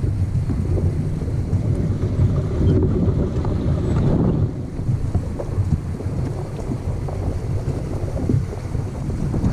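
Wind rumbling and buffeting on the microphone of a swan-shaped pedal boat, with water sloshing around the hull.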